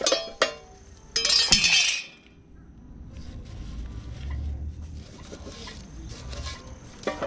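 Metal tools and parts clinking, with a loud clattering rattle about a second in, then quieter low rumbling and a few faint knocks as things are handled.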